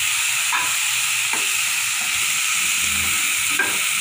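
Onion, tomato and green pepper topping sizzling in an oiled frying pan with a steady hiss, stirred with a spoon that scrapes the pan a few times.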